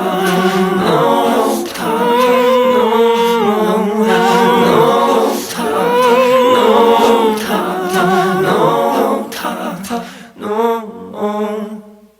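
Music track: layered sung vocals in phrases of about two seconds over a steady low note, with almost no instruments. It thins into short broken phrases near the end and cuts off.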